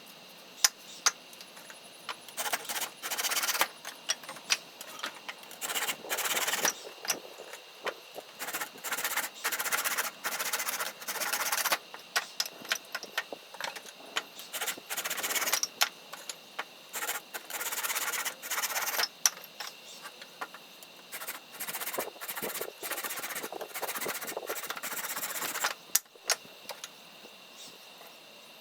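Hand saw cutting through a dry firewood branch: a run of rasping strokes with short pauses between them and a few sharp clicks. Dry wood like this is hard to cut by hand saw.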